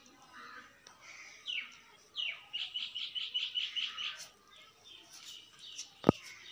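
Birds chirping: two short falling chirps, then a quick trill of high repeated notes, about six a second, that stops about four seconds in. A single sharp knock near the end.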